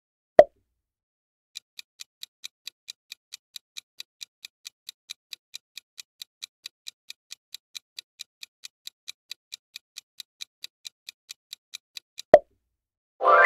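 Countdown timer sound effect: a fast, even clock ticking, about five ticks a second, running for about ten seconds while the answer time runs out. A short pop comes just after the start and another near the end, and a louder ringing sound effect begins right at the end.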